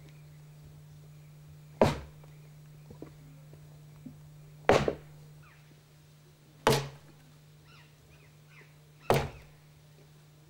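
Axe chopping firewood: four heavy, sharp strikes into wood, spaced about two to two and a half seconds apart. A faint steady low hum runs underneath.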